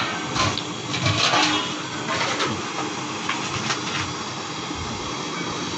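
Steady hiss of a gas burner running under a large aluminium cooking pot. A few brief knocks in the first couple of seconds as the pots are handled.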